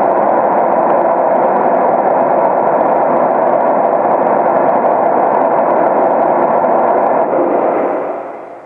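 Steady hiss of test noise played loud through a homemade plywood horn speaker, for a sound-level meter calibration; strongest in the midrange, fading out near the end.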